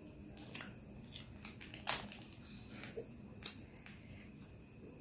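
Faint eating noises: scattered small clicks and lip smacks as cake is bitten and chewed and a fork works on a plate, the loudest click about two seconds in. Under them, a steady high-pitched whine.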